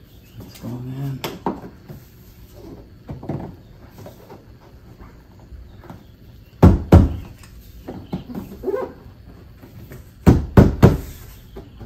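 Hands striking a 2009 Honda Civic's new window belt weatherstrip molding to seat it onto the door: dull thumps, two loud ones a little past halfway and a quick run of three near the end, with lighter knocks between.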